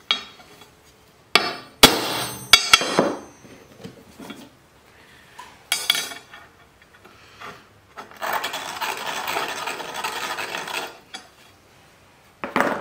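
Hammer striking a center punch on a steel plate to mark hole centers for drilling: several sharp metallic taps in the first three seconds, another about six seconds in, and one near the end. Between them, about three seconds of steady scraping on the plate.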